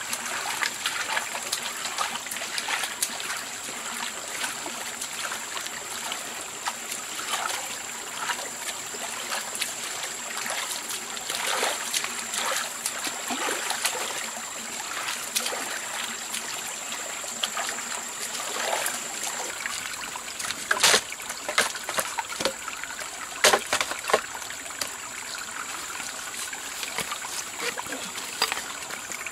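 Water trickling and splashing, broken by many small splashes or knocks, with a few sharper, louder ones about two-thirds of the way through.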